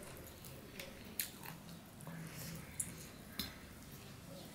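Close-up chewing of a mouthful of rice and curry while fingers mix and squish more on the plate, with a few sharp clicks.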